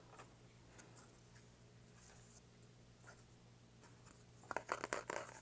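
Faint handling of card-deck packaging: light rubbing and rustling of cardboard and paper, with a quick cluster of scrapes and taps near the end.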